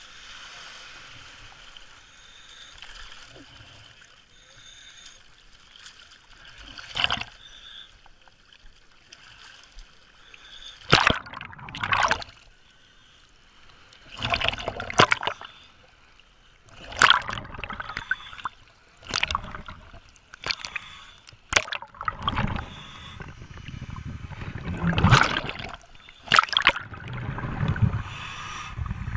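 Seawater sloshing and splashing around a diver's camera at the surface, in irregular loud bursts a second or two apart, after a quieter stretch of steady hiss.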